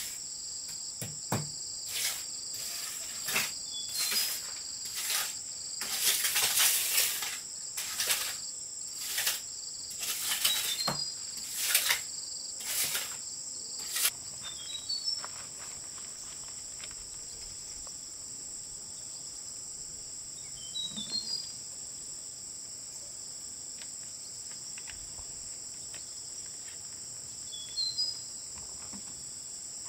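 Insects droning steadily at a high pitch, with a run of short noisy strokes about once a second that stops about halfway through, and a few brief high chirps.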